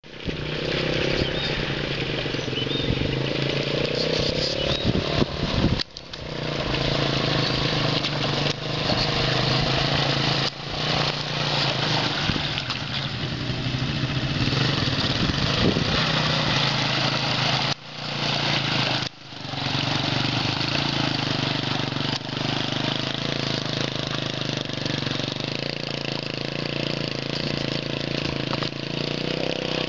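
Engine of a Leshy two-wheel-drive mud motorcycle running and pulling steadily as it rides through mud and puddles, with a few sudden short breaks where the sound drops out and comes back.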